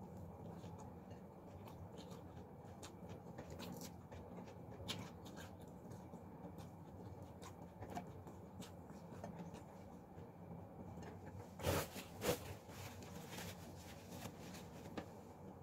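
Quiet eating sounds: small clicks of chewing and of fingers picking at fried chicken on a plate, over a low steady room hum. Two louder noises a little past two-thirds of the way through.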